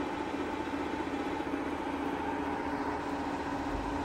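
SAEIL TMV-2 vertical milling machine's table power feed running steadily at its minimum feed rate of 60 mm per minute: an even mechanical hum with a low and a higher steady tone.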